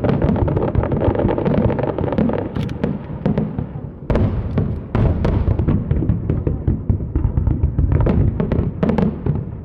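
Aerial fireworks shells bursting in quick succession: a continuous rumble of booms and sharp cracks, with a sudden heavy burst about four seconds in.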